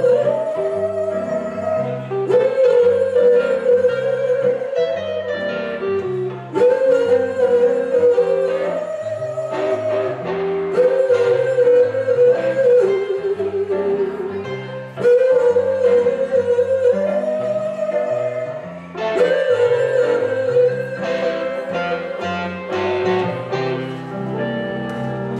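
Blues band playing live: electric guitar and keyboard over a stepping bass line, with a woman singing long held high notes in phrases that repeat every few seconds.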